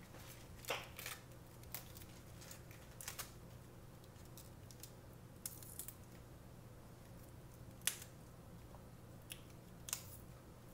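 Crisp leaves of a head of lettuce snapped and torn off the core by hand, a string of short sharp snaps at uneven intervals, the loudest near the end, over a faint steady low hum.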